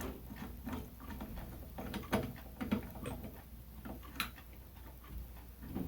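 Scattered light clicks and taps of a ceiling fan blade being fitted onto its blade arm and lined up for the screws. A few sharper clicks stand out, about two seconds in and again a little past four seconds.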